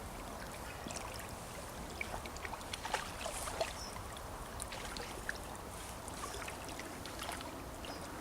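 Shallow river water running steadily, with irregular splashes and sloshes as someone wades out through it, clustered about two to four seconds in.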